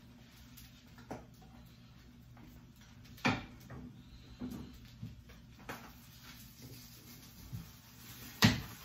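A metal spatula clicking and scraping against a nonstick frying pan as an omelette is worked loose, with a loud knock near the end as the pan is tipped over a plate. A low steady hum runs beneath.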